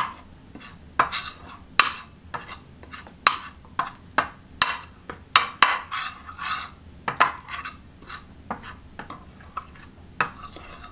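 A metal spoon stirring a dry mix of flour, turmeric and black pepper in a glass baking dish. Irregular clinks and short scrapes of the spoon against the glass, one or two a second.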